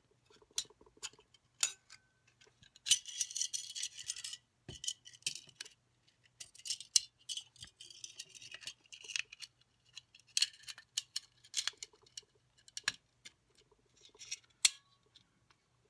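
Extended magazine base being slid down onto a pistol magazine body against spring pressure: a run of sharp clicks and short scraping rubs of the base on the magazine.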